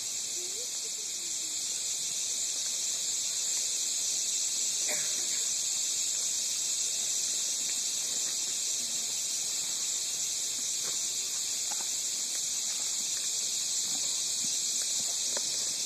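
Steady high-pitched hiss that does not change, with faint scattered taps underneath.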